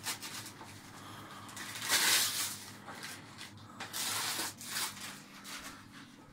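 Gift wrapping paper being torn and crinkled off a present in a run of rustling tears, loudest about two seconds in and again about four seconds in.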